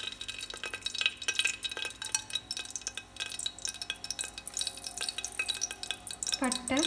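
Bay leaf and whole spices crackling and sputtering in hot oil and ghee at the bottom of a pressure cooker, a dense run of small pops.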